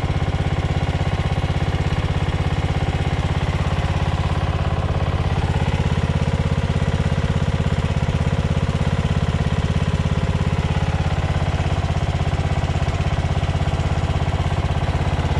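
LT2000 riding lawn mower's engine running steadily, its note shifting only slightly.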